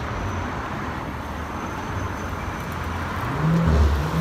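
Road traffic on a busy avenue: a steady rumble and tyre noise of passing cars, swelling briefly near the end as a vehicle goes by close.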